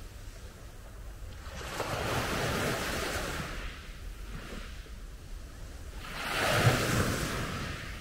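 Small sea waves breaking and washing up a sandy beach: one surge about two seconds in and a louder one about six seconds in, each swelling and then fading.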